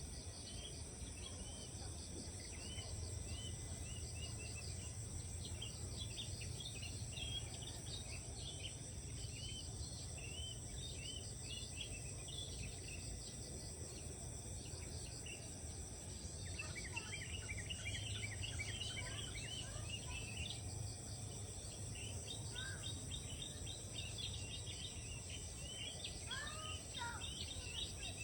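Rice-field morning chorus: many small birds chirping and twittering over a steady high drone of insects, with a low steady rumble underneath. Lower, sweeping bird calls come in a little past the middle and again near the end.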